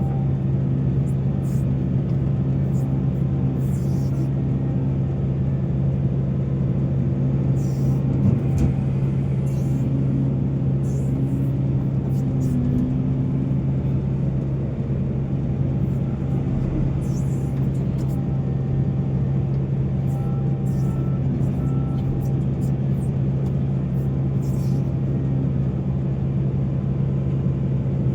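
Heavy diesel engine of mining machinery running steadily, a constant low drone with wavering tones above it and short faint high-pitched sounds scattered through.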